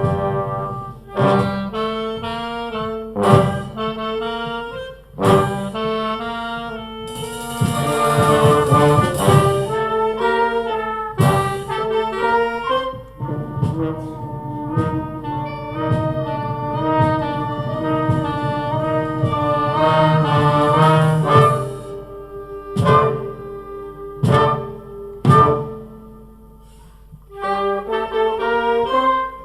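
Brass band music: sustained brass chords and melody punctuated by drum and cymbal strikes, with a crash-cymbal wash about eight seconds in and a brief quieter stretch near the end.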